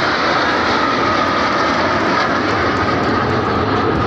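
Formation of military jet aircraft flying past: loud, steady engine noise with a high whine held through it.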